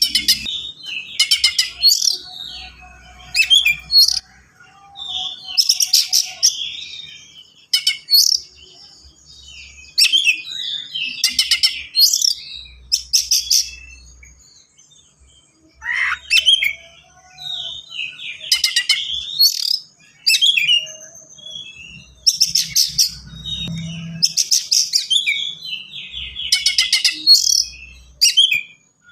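Oriental magpie-robin (kacer) singing a fast, dense song: loud, high-pitched phrases of whistles and sharp notes that come one after another every second or two, with only short pauses between them.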